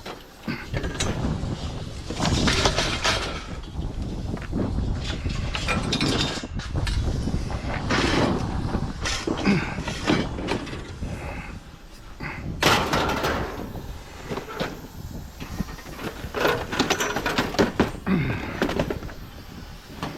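Pieces of scrap metal being handled and tossed down, clanging and clattering, with several heavier bangs.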